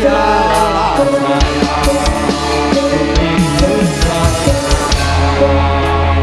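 Live Javanese jaranan accompaniment music: an ensemble of held, ringing tones with a drum playing a quick run of strokes, several of them sliding in pitch, through the middle of the passage.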